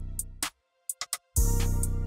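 Background electronic music with a drum beat and bass. It cuts out for under a second, with a few sharp clicks in the gap, then comes back in.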